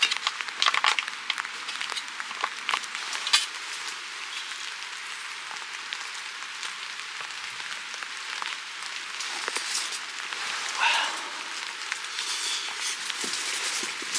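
Scattered clicks and taps of a metal spoon and food pouch against a metal plate, over a steady hiss.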